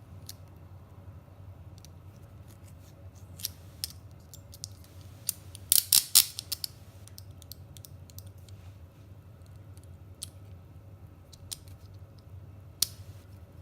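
Metal clicks and light rattling of police handcuffs as a shim is held in the ratchet and the cuff jaw is pulled back open. A quick cluster of loud clicks comes about six seconds in, with scattered single clicks before and after.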